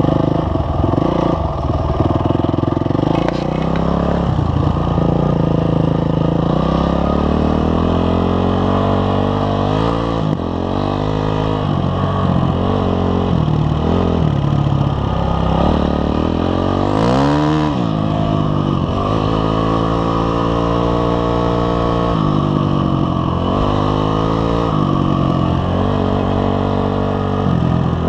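Honda CRF250X's single-cylinder four-stroke engine being ridden, its pitch rising and falling over and over as the throttle is opened and closed through the gears. A quick, sharp rev stands out a little past the middle.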